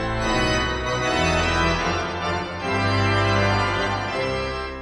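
Organ music: a few long held chords, each changing after a second or two, cutting off abruptly at the end.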